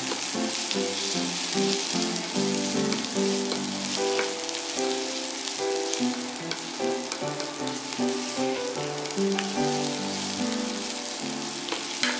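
Asparagus pieces sizzling as they stir-fry in oil in a nonstick pan, with a few light clicks as chopsticks turn them against the pan.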